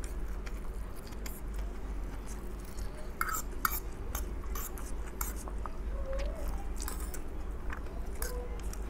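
Close-up sound of someone eating fried instant noodles: chewing, with many short wet mouth clicks and occasional taps of a metal fork on a plate.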